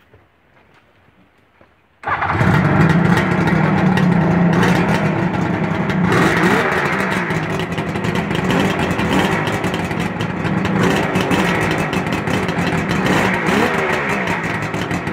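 A Suzuki GT750 'Water Buffalo' two-stroke triple that has not run in twenty years catches suddenly about two seconds in, after a faint start, and keeps running loudly. Its revs rise and fall a couple of times, around six seconds in and again near the end.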